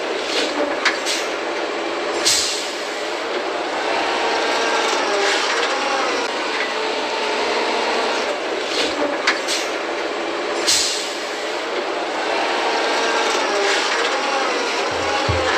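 Harvesting machinery running steadily, with a wavering whine and a few sharp knocks over the clatter.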